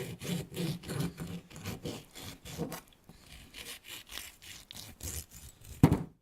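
A lemon being worked by hand with kitchen tools: quick rubbing, scraping strokes, about three or four a second, with a sharp knock near the end.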